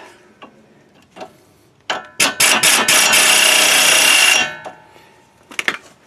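Pneumatic impact wrench working on a sway bar end link nut: a few sharp clicks, then a loud burst of about a second and a half with a steady high whine. A few more clicks come near the end.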